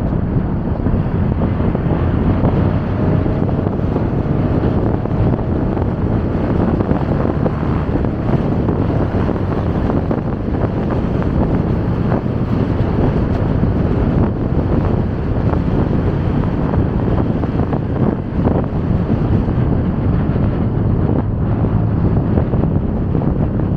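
Steady wind rush on the microphone of a moving motorcycle, mixed with the rumble of the ride and the surrounding city traffic, with a few brief knocks along the way.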